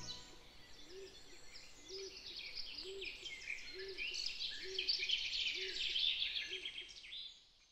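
Songbirds chirping and trilling in a busy chorus, with a low note repeating about once a second underneath; it fades out near the end.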